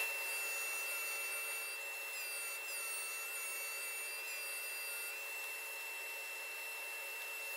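Router table's router spinning a bearing-guided chamfer bit with a steady high whine, its pitch dipping several times as the bit takes cuts along the edge of a round wooden tabletop to shape a bevel.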